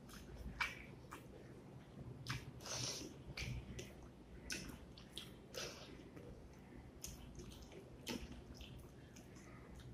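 Fingers squeezing and mixing cooked rice with beef curry gravy on a plastic plate: irregular wet, sticky clicks and squelches.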